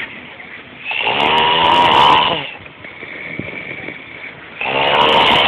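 A drunk person snoring heavily in two long, loud snores, one about a second in and another starting near the end, with quieter breathing between them.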